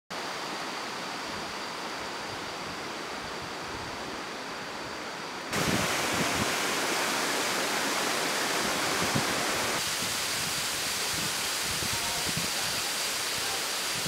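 Steady rush of a fast river, then from about five and a half seconds in a louder, brighter, hissing rush of a tall waterfall pouring down a rock face. The water sound shifts again near ten seconds in.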